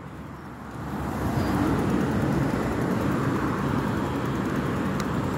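Wind rushing over a phone microphone carried on a moving bicycle, a steady low rumble that builds about a second in.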